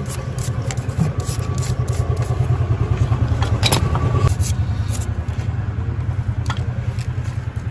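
A Royal Enfield Continental GT 650's parallel-twin engine running steadily, with a fast, even pulse. A few sharp metallic clicks sound over it.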